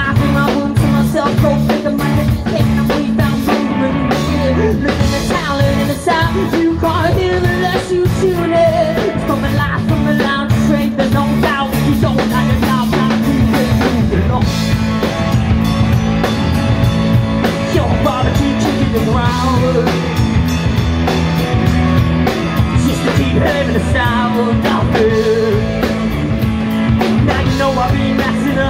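Live rock band playing at full volume: electric guitar, bass guitar and drum kit with a man singing over a steady beat.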